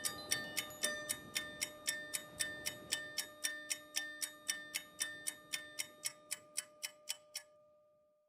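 Clock-like ticking, about three ticks a second, with a few held tones beneath it. It grows fainter and stops about seven and a half seconds in.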